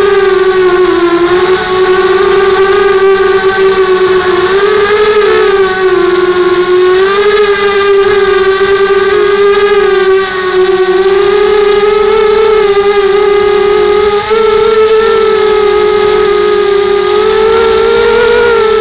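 Electric motors and propellers of a small FPV model aircraft, picked up by its onboard camera: a loud, steady, high hum that wavers slightly up and down in pitch as the throttle shifts.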